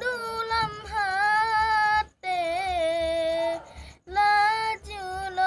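A boy chanting solo in a high, unbroken voice, holding long wavering melodic notes with short breaths between phrases, in the style of a santri's Quranic recitation or devotional chant.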